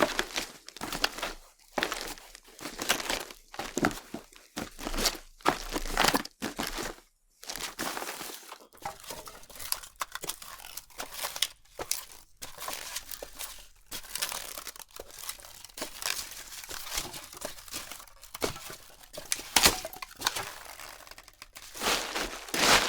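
Footsteps crunching on a loose, crunchy surface: a run of separate steps about once or twice a second, then a denser stretch of finer crunching and rustling, with louder steps near the end.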